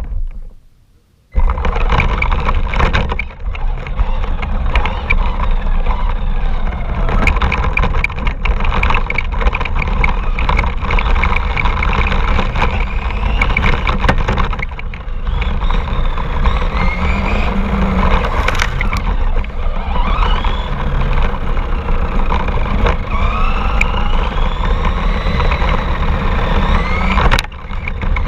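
RC car driving, heard from a GoPro on or near it: a motor whine that rises and falls in pitch with the throttle over a heavy, steady rumble. The sound cuts out for about a second just after the start.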